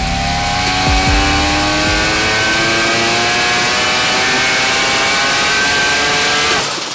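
Turbocharged Mazda 20B three-rotor rotary engine pulling under load on an engine dyno, its revs climbing steadily for about six and a half seconds, then dropping away suddenly near the end.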